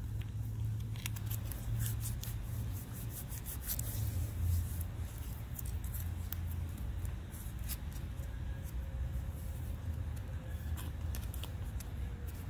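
A foil pouch crinkling and crackling as it is handled and creased, in quick irregular clicks that are densest in the first few seconds. A steady low rumble runs underneath.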